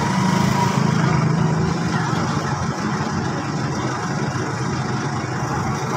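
A steady, low engine drone like a motor vehicle idling, with no knocks or taps standing out.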